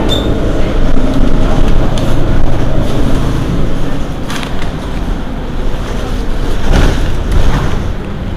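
Mercedes-Benz Citaro Facelift city bus's diesel engine idling while standing, a steady low rumble, with two brief hisses about four and seven seconds in.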